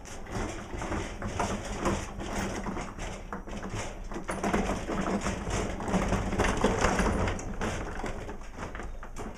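A wheeled dust-collector cart being rolled across a concrete shop floor: casters rumbling with irregular knocks and rattles, loudest a little past the middle.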